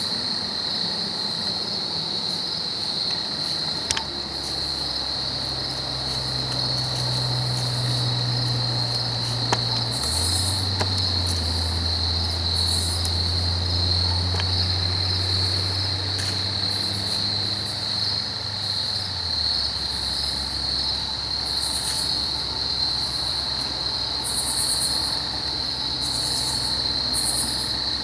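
Steady, unbroken chorus of crickets trilling high. Under it, a low steady hum starts about four seconds in, drops in pitch about ten seconds in, and stops shortly before twenty seconds.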